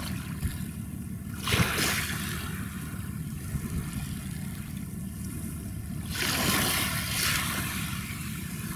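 Waterside ambience: a steady low rumble of wind and water, with water washing in twice, a short hissing swell about a second and a half in and a longer one around six seconds.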